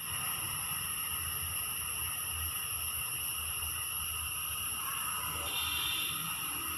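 A steady, high-pitched insect chorus, with a low rumble underneath. A brighter, higher tone joins in about five and a half seconds in.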